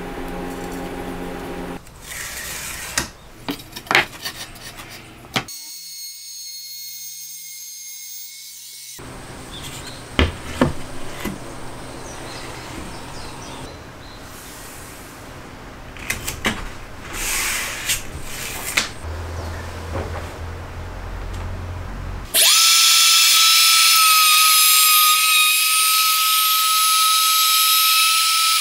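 Cordless Makita RT50DZ trim router running with a steady, high-pitched whine, switched on about three quarters of the way through. Before that, scattered knocks and clicks of wood and tools being handled.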